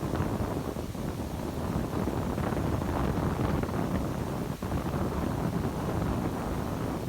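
Wind buffeting the microphone over a low, steady rumble of a Boeing 747-400F's four jet engines at takeoff power, with a brief drop about four and a half seconds in.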